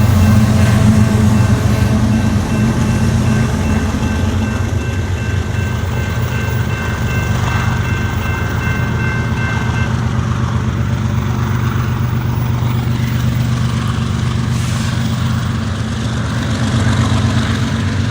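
A train running past, with a steady heavy low rumble of engine and rolling cars. A thin high steady tone sounds over it and stops about ten seconds in.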